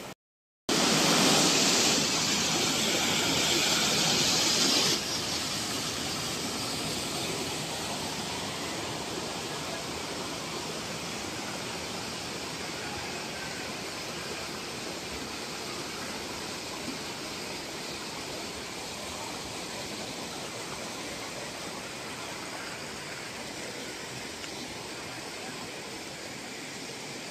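Swollen floodwater rushing and splashing over rocks in a concrete-walled creek channel, a steady rushing noise. It starts after a short silence, is loudest for the first few seconds, then settles to a softer, even rush.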